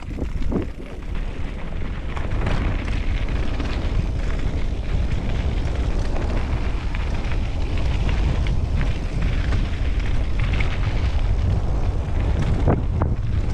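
Wind buffeting a helmet-mounted camera's microphone while a mountain bike rolls fast down a dirt and gravel trail, with tyre noise and scattered clicks and rattles from the bike. The rumble builds over the first two seconds as the bike picks up speed, then holds steady.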